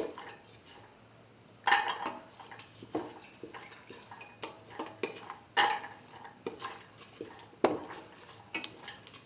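Metal ladle scraping and clinking against the side of a steel pot while green peas are stirred into a thick beetroot paste, a sharp scrape every second or two.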